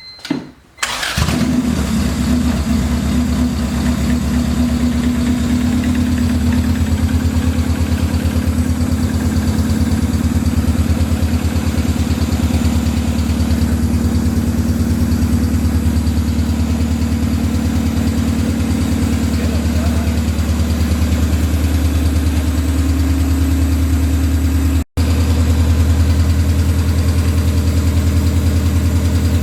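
Honda B18B 1.8-litre four-cylinder engine starting about a second in, then idling steadily and loud with no exhaust fitted. It runs evenly, the misfire cured by new fuel injectors. The sound breaks off for a split second about three-quarters of the way through.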